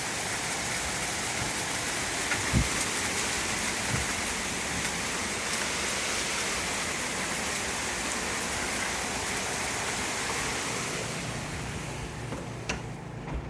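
Heavy rain pouring down: a dense, steady hiss of drops with scattered sharper ticks of impacts. The downpour thins out in the last couple of seconds.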